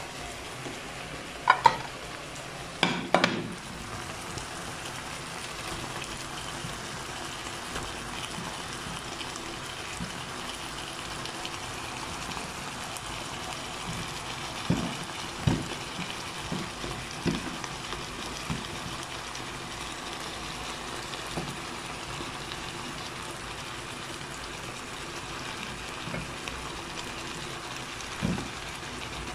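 Sausages and sliced bell peppers sizzling steadily in a frying pan. A few sharp knocks break in, about a second and a half and three seconds in, several more around the middle, and one near the end.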